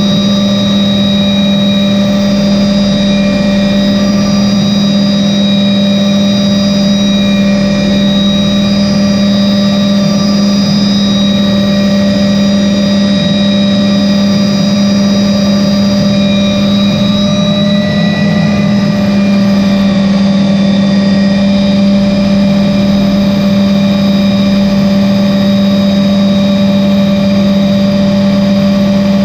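MD 520N helicopter's turboshaft engine and rotor system running steadily during a descent to a landing, heard from inside the cockpit. It is a loud, even low hum with several fainter, higher whines held steady above it.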